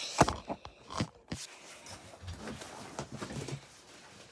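Rustling and handling noise of a puffy winter jacket being pulled off, with two sharp knocks in the first second.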